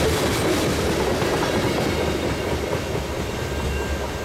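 Freight train of covered hopper cars rolling past, its steel wheels clattering over the rails. The sound eases off as the last car goes by.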